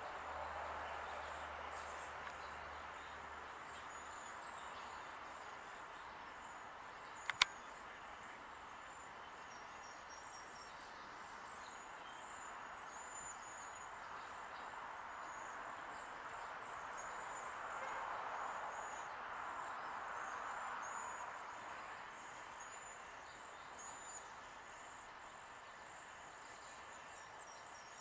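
Quiet outdoor ambience: a steady high-pitched hiss with faint short chirps, and a soft rushing that swells about eighteen seconds in and fades. One sharp click about seven seconds in.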